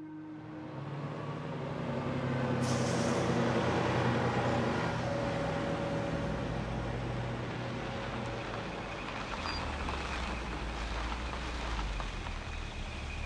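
Street traffic: a city bus's diesel engine running as it passes, with a short air-brake hiss about three seconds in, then passing cars and a steady low engine rumble in the second half.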